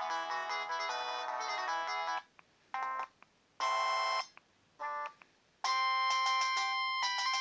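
Samsung N620 mobile phone playing its preloaded electronic ringtones through its small speaker: a busy melody stops about two seconds in, three short separate tone blips follow, and another ringtone with longer held notes starts about two thirds of the way through.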